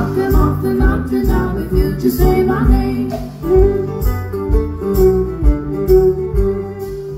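Live band music: an acoustic guitar strummed over a steady kick-drum beat of about two thumps a second.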